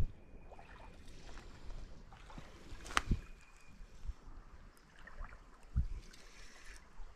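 Spinning reel being cranked on a light rod, bringing in a small hooked fish, with quiet handling noise, a sharp click about three seconds in and a low thump near the end.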